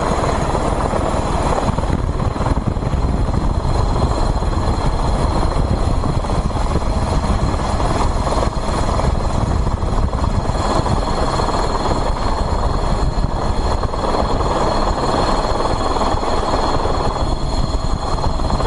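Helicopter in flight, its rotor and turbine running as a loud, steady drone with no change throughout.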